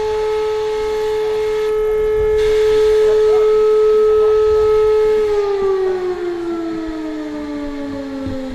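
Electric train's traction motor whine: a loud, steady pitched whine held for about five seconds, then falling slowly in pitch as the train slows.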